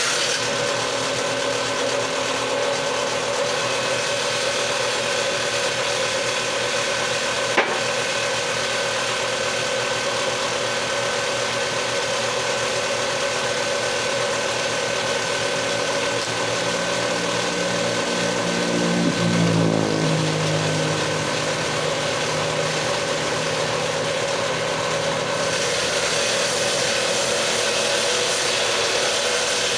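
Electric woodworking power tool running steadily on lumber, with a single sharp click about a quarter of the way in and a lower hum that slides down and swells briefly past the middle.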